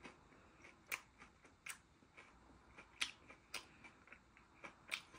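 Faint, irregular crunches of fried chicken being chewed, about six short crisp cracks a second or so apart.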